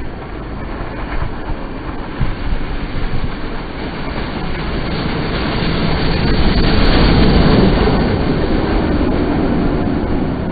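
Three-cylinder Peppercorn A1 Pacific steam locomotive 60163 Tornado running through at high speed with its train of coaches. The noise builds as it approaches and is loudest about six to eight seconds in as the engine passes, then carries on as the coaches roll by.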